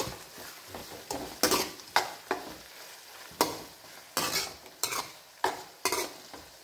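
Spatula scraping and stirring chopped tomatoes and onions around a metal wok (cheenachatti), about ten irregular scrapes roughly every half second to a second, over the steady sizzle of the vegetables frying in oil.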